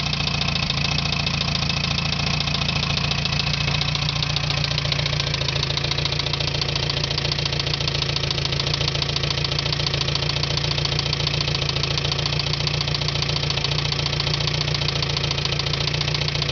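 Older car's engine idling steadily in the open engine bay, with a fast, even beat.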